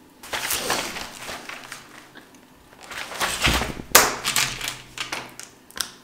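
Desk handling noises from studying: rustling of paper with sharp clicks and knocks from pens and highlighters being picked up and set down. The sharpest knock, about four seconds in, is the loudest.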